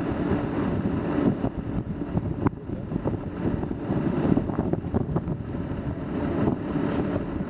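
Steady low rumble of an idling engine, with wind buffeting the microphone and a single sharp click about two and a half seconds in.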